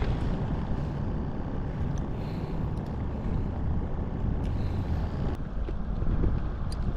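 Wind rumbling steadily on the microphone, with a few faint ticks.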